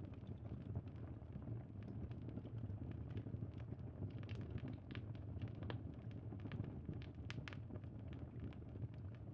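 Crackling bonfire: scattered sharp pops and snaps over a steady low rumble.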